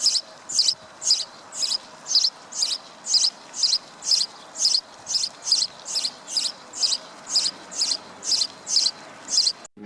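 An animal's short, high-pitched chirp repeated at an even pace of about two a second, over a faint steady hiss.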